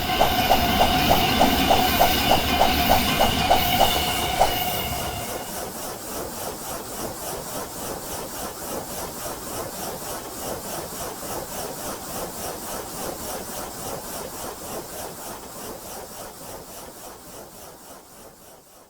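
Japanese railroad crossing warning bell ringing in a steady repeated ding that stops about five seconds in, followed by a passing train's rhythmic wheel clatter fading away.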